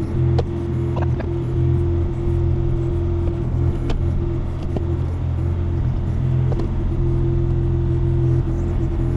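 Takeuchi TB235-2 mini excavator's diesel engine running steadily under working load, heard from the operator's cab, with a steady tone over the low engine drone. A few light knocks come as the bucket works at a stump.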